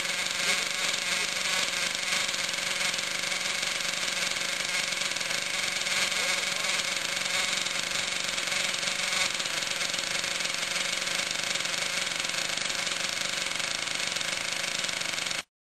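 Thunder Tiger MTA4 Sledge Hammer S50 RC monster truck driving: a steady, dense mechanical running noise with a faint constant whine. It cuts off suddenly near the end.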